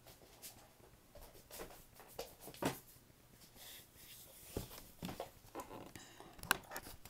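Faint, irregular clicks, taps and rustles in a small room, the sharpest tap about two and a half seconds in and another near the end.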